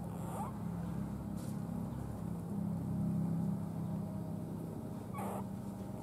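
Newborn puppy giving two short, rising squeaks, one near the start and one about five seconds in, over a steady low rumble that swells in the middle.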